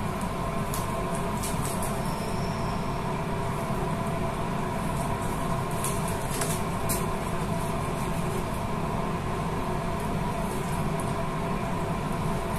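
Steady machine hum with a few fixed tones over a low rumble, and a few faint clicks now and then.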